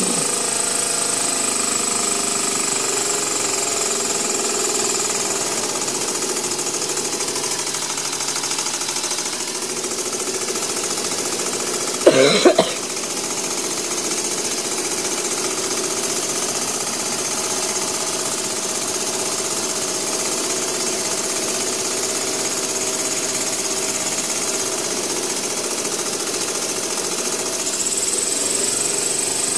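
Small homemade steam engine running steadily on steam from its boiler, a fast mechanical chatter of exhaust beats. Its pitch eases down after the ball-valve throttle is cut back and rises again near the end as the throttle is opened. A brief louder pitched sound comes about halfway through.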